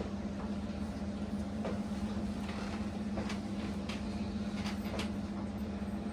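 Spoons clicking and scraping against plates now and then as people eat, over a steady low hum in the room.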